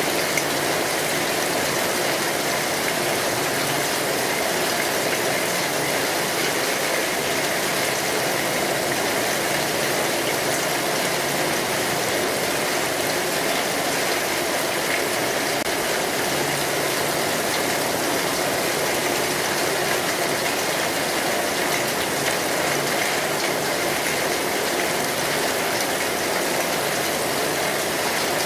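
Steady rain falling on a street, an even hiss with no let-up and no bell chimes.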